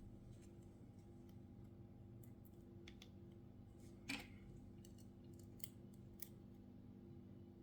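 Faint clicks and ticks of small repair tools working on a smartphone's parts, with one sharper click and brief scrape about four seconds in, over a faint steady hum.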